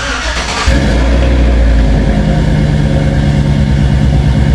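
A pickup truck's engine starting up and settling into a steady idle within the first second.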